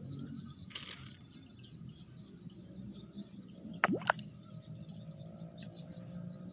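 Crickets and other insects chirping steadily, with two brief sharp sounds close together about four seconds in, louder than anything else.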